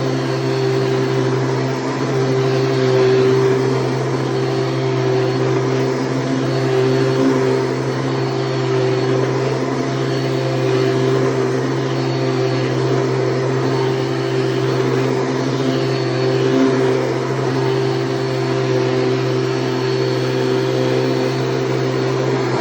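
Orange Hoover Commercial Hard Bag Elite upright vacuum cleaner running, its motor giving a steady, loud hum that wavers only slightly.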